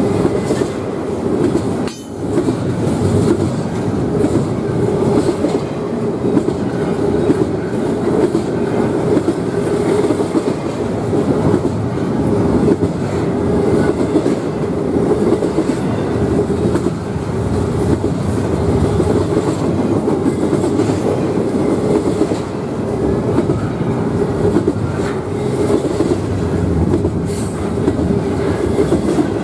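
Double-stack intermodal well cars of a freight train rolling past close by: a steady rumble and clatter of steel wheels on the rails.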